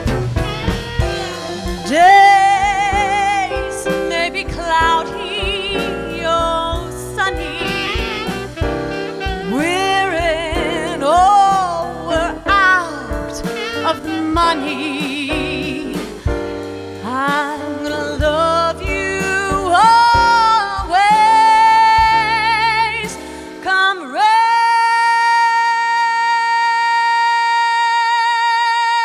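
Female jazz vocalist singing with a pianist and upright bass, the voice sliding through runs with vibrato. About three-quarters of the way in she holds one long high note with vibrato as the bass drops away.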